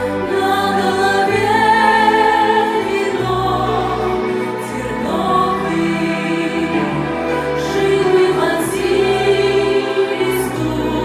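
Choral music: a choir singing slow, held chords over a bass line that changes every second or two.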